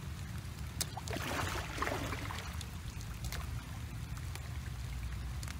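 Hands scooping and splashing in shallow muddy paddy water, with a burst of sloshing about a second in and a few small clicks, over a steady low rumble.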